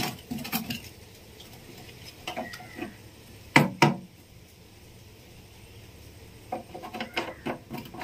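Plastic jerrycan being handled and knocked about on the ground: two sharp knocks close together a few seconds in, then a run of light taps and clicks near the end.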